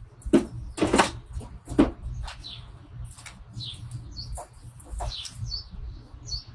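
Small birds chirping: short high chirps repeated roughly once a second. Three loud knocks in the first two seconds stand out above them, over a steady low rumble.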